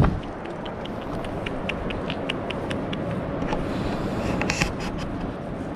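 Footsteps crunching on gravel, short irregular crunches over a steady rushing background noise, with a thump right at the start.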